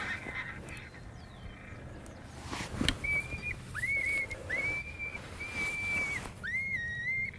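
A series of coyote howls: five or six short, high notes, each sliding up then held level, starting about three seconds in. They come just after a single sharp crack.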